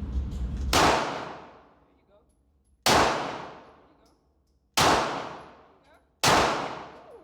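Four pistol shots fired one at a time, roughly two seconds apart; each is a sharp crack followed by an echoing decay of about a second.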